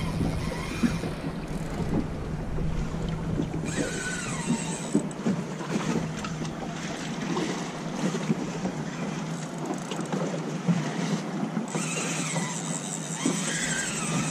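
Wind buffeting the microphone and water lapping against a small boat's hull. A couple of faint high gliding squeals come in about four seconds in and again near the end.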